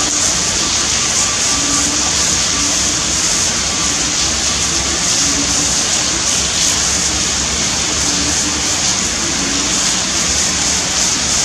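Torrential rain pouring down in a steady, loud, hissing rush.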